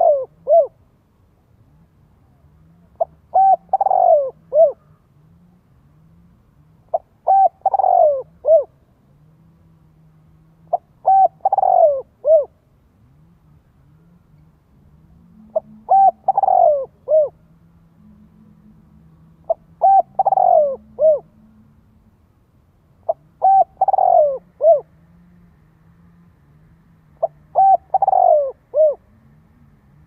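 Spotted dove cooing its song phrase over and over, about every four seconds: a couple of short coos, a longer falling coo, then a short last note.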